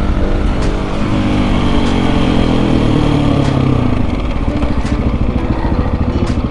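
Husqvarna 701 supermoto's single-cylinder engine running, its pitch falling over the first few seconds as the revs drop, then running at low revs with a rough, evenly pulsing beat.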